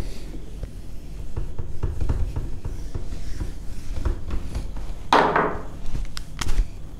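Board eraser rubbing back and forth across a whiteboard, wiping it clean, with small scrapes and knocks as the block moves. A louder short noise comes a little after five seconds in.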